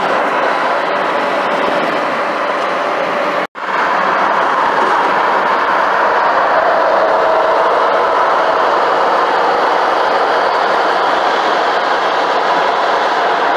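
Steady, loud highway road and wind noise from a car driving alongside tractor-trailers, tyres and truck running together in one dense rush. The sound cuts out for an instant about three and a half seconds in, then resumes.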